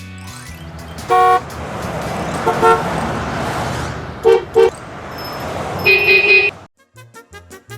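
Vehicle sound effect: a motor running with five short horn toots, two of them in quick succession. Children's music starts near the end.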